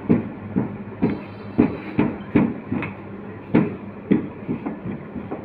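Rolling pin rolling out paratha dough on a rolling board, knocking in an uneven rhythm about twice a second as it goes back and forth.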